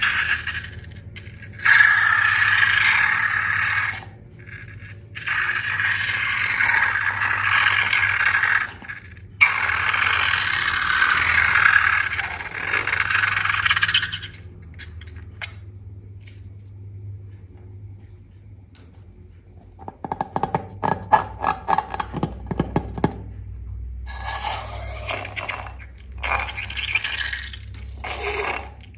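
Hands working glossy slime with mixed-in add-ins such as clay, foam slime and glitter: long stretches of scratchy crackling and scraping, then a run of quick sharp clicks and pops about two-thirds of the way in.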